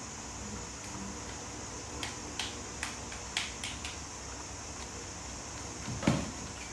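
Steady background hiss with a handful of light clicks and taps, then one louder, duller thump near the end.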